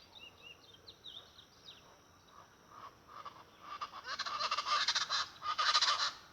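Speckled chachalacas calling in a loud chorus of rapid, harsh calls, building from about three seconds in and stopping shortly before the end. Faint high chirps of small birds come before it.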